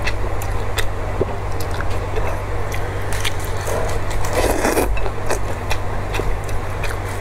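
A person slurping up thin noodles from a bowl of soup and chewing, with scattered wet clicks. There are two louder slurps, about three and about four and a half seconds in, over a steady low hum.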